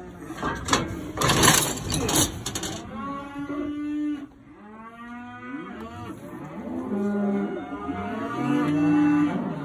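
A burst of knocks and rattling in the first few seconds, then cows mooing, several long low calls one after another.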